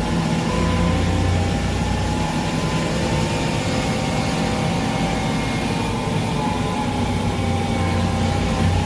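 Engine of a large vehicle running steadily as it drives along a road, heard from inside the cab, with a faint steady whine above the low engine hum.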